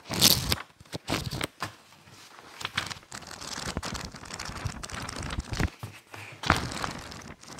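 Pages of a thick hardcover book being flipped and riffled by hand: a loud rustling flip at the start, a rapid fluttering run of pages through the middle, and another loud flip near the end.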